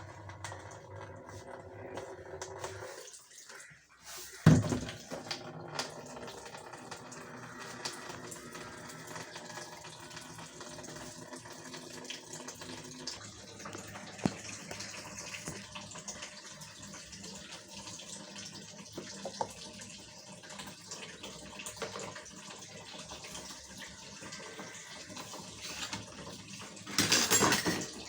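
Dishes being washed by hand in a kitchen sink: water running and splashing, with scattered clinks of utensils. A sharp knock comes about four and a half seconds in, and a louder burst of splashing near the end.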